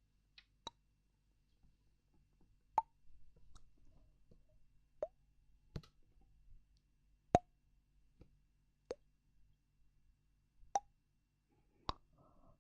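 A slow, irregular series of sharp little plops, about nine, each a second or two apart, with a brief pitched tail that dips slightly.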